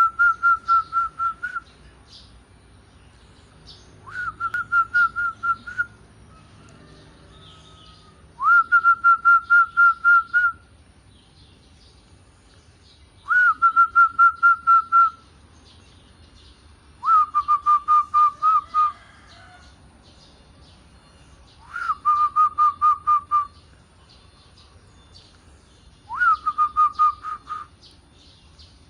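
Zebra dove (perkutut) cooing: seven phrases about four to five seconds apart, each a short rising note followed by a fast run of clipped, even notes at one pitch.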